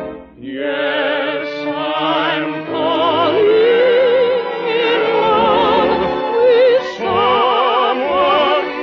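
Operatic singing with a wide vibrato, a high voice leading, from an old narrow-sounding radio broadcast recording.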